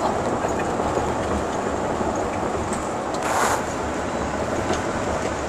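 Steady road and engine noise heard from inside a car moving along a freeway, with a short louder hiss about three seconds in.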